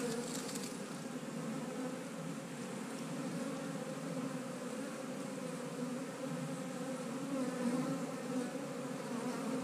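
Honey bees buzzing around an opened hive during an inspection, a steady hum.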